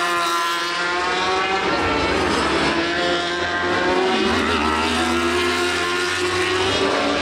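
Racing superbike engines at high revs, the pitch dropping and climbing again several times as the bikes shift gear and come off and back onto the throttle.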